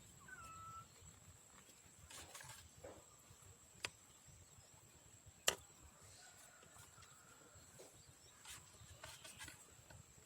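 Quiet backyard with faint chicken vocalisations: a short, soft, drawn-out call near the start and a fainter one after the middle. Two sharp clicks fall between them.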